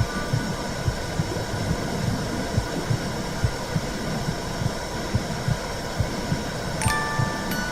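Womb sound: muffled low heartbeat thumps under a steady whooshing rush. Near the end, several wind-chime notes ring out over it.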